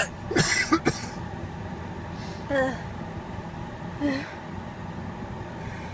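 A woman hiccuping, a short sharp catch of the voice about every two seconds, with a rougher gasping one near the start. Steady car-cabin noise underneath.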